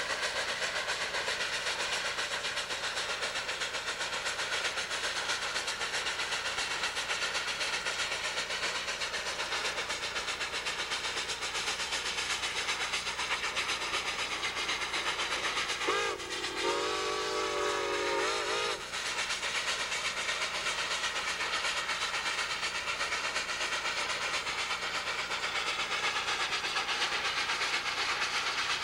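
Steam locomotive 614 and its train running, a steady rush of rail and running noise. About two-thirds of the way through, the locomotive's chime steam whistle sounds once, a chord of several notes held for about three seconds.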